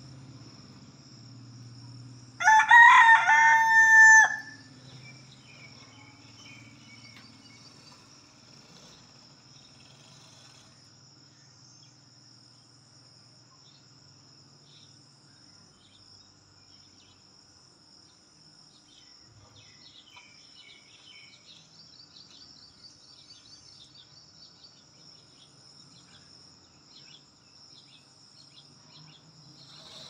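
A rooster crows once, loud and about two seconds long, starting about two and a half seconds in and ending on a held note. A faint steady high hum runs underneath.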